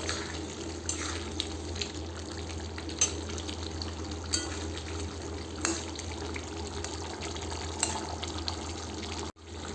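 Fish-head ghonto simmering uncovered in a kadai over a gas burner: a steady low hiss with a few soft pops, as it cooks off with the lid open for a couple of minutes.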